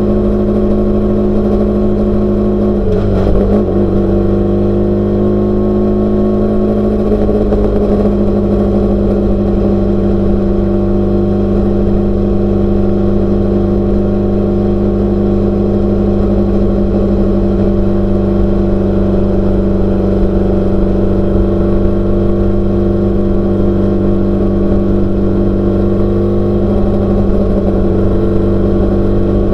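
Off-road race car engine running hard at a steady, high speed. About three seconds in there is a jolt, and the engine pitch wavers before settling back to an even note.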